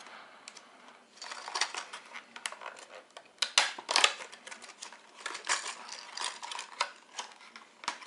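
Clear plastic box of a wobbler fishing lure being handled and opened: a run of sharp plastic clicks and crackling, loudest about three and a half to four seconds in.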